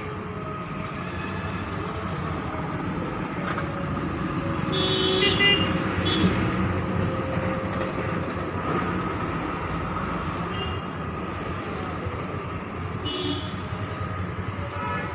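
Road traffic noise with vehicle horns tooting: a burst of horn toots about five seconds in and a short one near the end.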